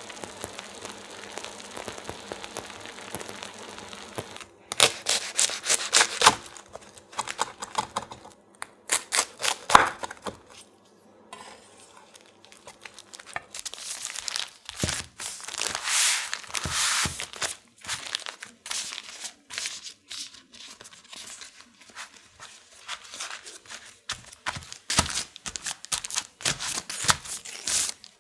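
Parchment paper crinkling and rustling in irregular bursts as a rolled sheet of puff pastry is unrolled from it and smoothed flat by hand. The crinkling starts about five seconds in, after a faint steady hiss.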